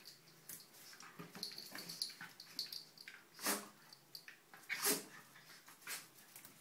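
A small dog and a cat play-fighting on a tile floor: a run of short scrabbling and scuffling clicks from paws and claws, with two louder short rushes of noise about three and a half and five seconds in.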